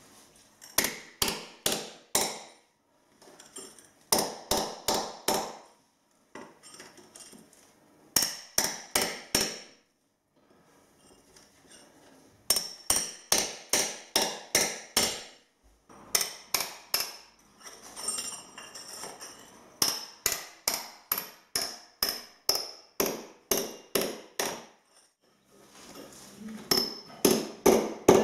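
Hammer striking a bolster chisel to chop plaster off a chimney breast: quick runs of about four to eight ringing blows, several a second, broken by short pauses.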